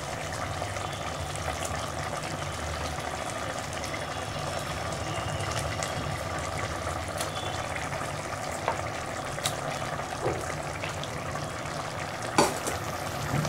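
Tomato-onion gravy sizzling steadily in a steel pot as raw chicken pieces go into it, with scattered soft clicks and one sharper knock near the end.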